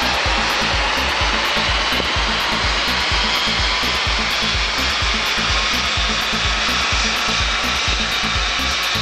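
BMW 330d's 3.0-litre straight-six turbodiesel running hard on a roller dynamometer during a power run: a loud, steady rushing noise. Background music with a steady beat plays over it.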